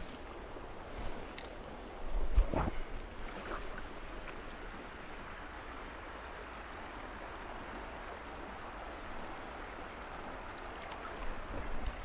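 Shallow stream running over stones, a steady rush of water, with a short louder burst of splashing about two seconds in as a hooked trout is handled in the water.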